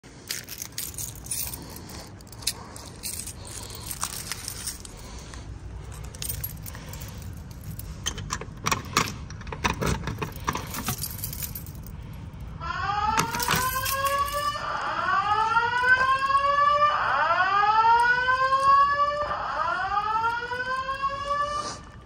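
Clicks and key rattling as a fire alarm pull station is handled. About twelve seconds in, the speakers of a Simplex 4100U voice evacuation system start the slow whoop evacuation tone: a loud rising sweep, repeated four times about every two seconds.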